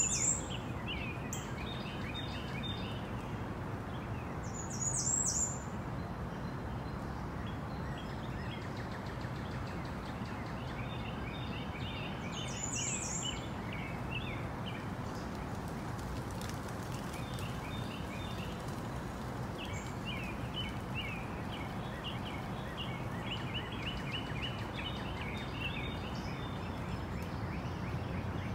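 Birds chirping in the background, with clusters of short chirps through most of the stretch and a few brief, higher, louder calls near the start, about five seconds in and about thirteen seconds in, over a steady low hum and hiss.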